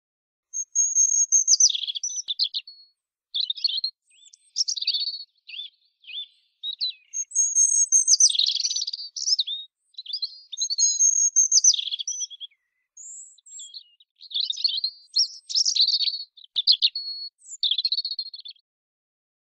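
European robin singing: a string of high, varied warbling phrases, each a second or so long, separated by short pauses.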